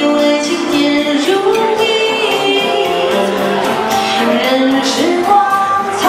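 A woman singing into a handheld microphone over instrumental accompaniment, holding long notes; the melody steps up in pitch about a second in and again near the end.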